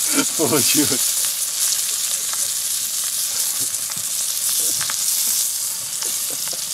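Flour-dredged young bream frying in hot oil in an aluminium pan: a steady high sizzle. A spatula scrapes lightly under the fish near the end.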